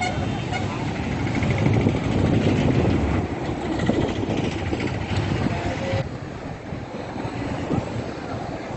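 Steady low rushing rumble of a river in heavy flood, mixed with the noise of traffic crossing the bridge above it. The higher hiss thins out about six seconds in.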